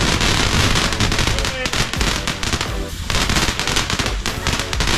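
Fireworks going off, a fast run of crackles and bangs one on top of another.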